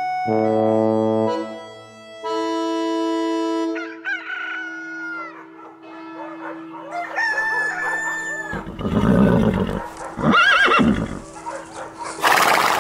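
Sustained organ chords for the first few seconds, then a run of animal calls with wavering, gliding pitch, ending in several louder, rougher calls near the end.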